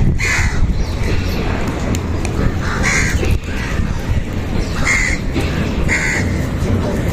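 A crow cawing about four times in short harsh calls, over a steady low background rumble.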